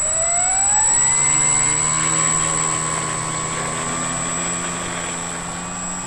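Electric brushless motor and propeller of a Dynam Tiger Moth RC biplane. The whine rises in pitch through the first second as the throttle is opened for the takeoff run, then holds steady at high power as the model lifts off the grass. A constant thin high-pitched tone runs above it.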